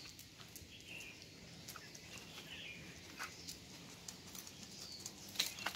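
Quiet scattered footsteps and claw taps on asphalt from a Labrador retriever and its walker, with one sharper tap about five seconds in.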